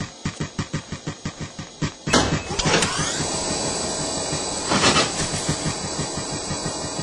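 Cartoon treadmill sound effects: a bear's feet thump on the moving belt about five times a second. About two seconds in, a loud whirring hiss cuts in with a rising whine as the belt speeds up, and the footfalls come faster.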